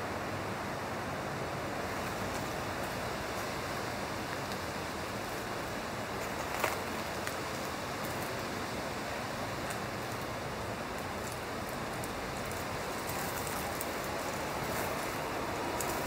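Steady outdoor background noise, an even hiss without any clear source, with one sharp click about six and a half seconds in and a few faint ticks near the end.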